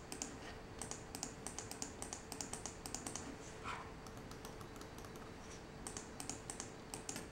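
Faint, rapid clicking of computer mouse buttons, about four clicks a second from a Microsoft mouse. In the middle the clicks thin out while the TECKNET folding mouse, whose buttons click quietly, is pressed. The Microsoft mouse's clicking comes back near the end.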